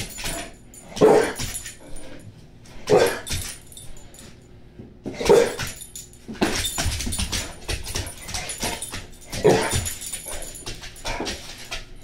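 Large dog barking, about four loud barks a couple of seconds apart with quieter noises between, while a bite pillow is held out of its reach overhead.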